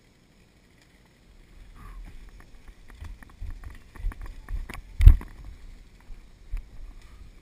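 Feet knocking down the perforated metal steps of a ladder, with gear and rifle rattling against the frame, in an irregular run of knocks and thumps. A heavy thump about five seconds in is the loudest sound.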